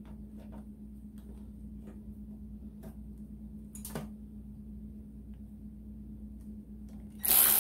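Scattered faint clicks and ticks over a steady low hum. Near the end a loud rushing noise starts suddenly.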